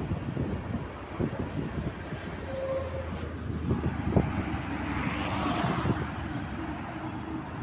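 Road traffic noise heard from a moving scooter: a steady rumble of engines and tyres, with a vehicle passing close about five seconds in.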